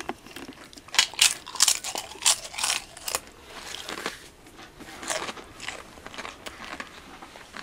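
A person biting into and chewing a tortilla chip with guacamole: a run of loud, sharp crunches about one to three seconds in, then softer, sparser chewing crunches.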